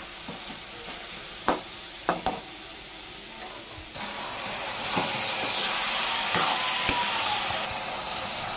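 Okra, tomato and onion pieces sizzling as they fry in a steel kadai, with a few clinks and scrapes of a spatula against the pan as they are stirred. The sizzle grows louder about four seconds in.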